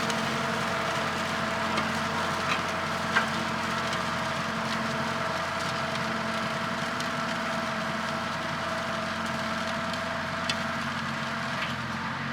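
An engine running steadily at constant speed, with a few faint clicks over it.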